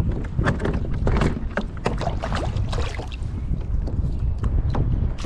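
Irregular splashing and knocking of water and gear on a kayak, over a steady low rumble.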